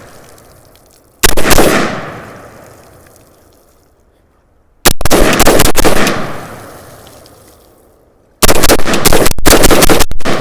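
Gunshots from a 5.56 AR-15 pistol fired into a pond. One shot comes about a second in and another near five seconds, each ringing out and fading over a couple of seconds. Near the end comes a quick string of several shots.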